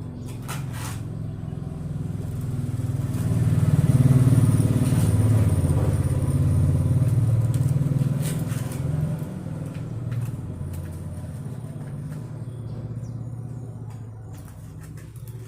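A motor vehicle engine passing by: it grows louder to its loudest about four seconds in, then slowly fades away.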